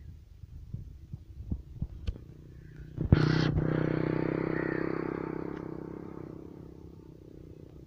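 A few faint knocks, then about three seconds in an engine comes in suddenly and loud with a steady, finely pulsing note, fading gradually away over the next four seconds.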